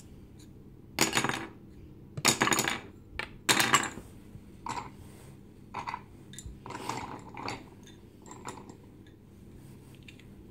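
Wooden Montessori spindles clattering against each other and the wooden spindle box as they are dropped and handled: three loud rattles in the first four seconds, then softer wooden clicks.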